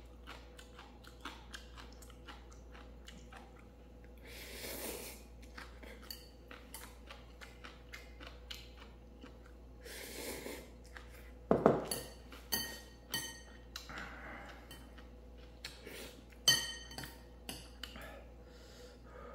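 Someone eating ramen: chewing and slurping noodles, with two longer slurps. Around the middle and again later, utensils clink sharply against the bowl with a short ring, the loudest sounds.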